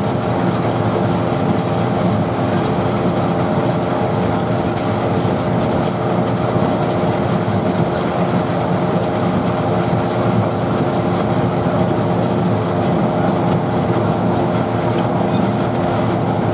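Vintage threshing machine and straw baler running together at working speed: a steady mechanical hum with continuous rattling clatter.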